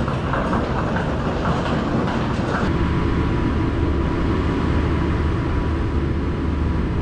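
Luggage trolleys rattling as they are wheeled along a walkway. About a third of the way in, the sound cuts to a steady low rumble with a faint steady high whine.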